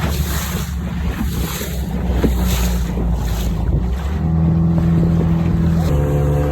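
Small outboard motor running as an aluminium tinnie moves over the water, with wind on the microphone and water rushing against the hull. The engine note grows louder and higher about four seconds in, and shifts again near the end.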